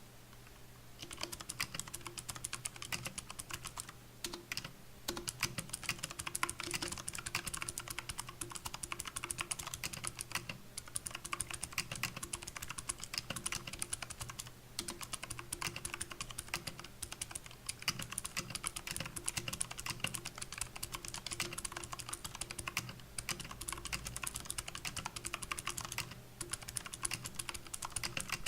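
Typing on a Royal Kludge RK61 60% mechanical keyboard with clicky blue switches and O-ring dampeners under the keycaps: a dense, steady stream of key clicks that starts about a second in, broken by a few short pauses.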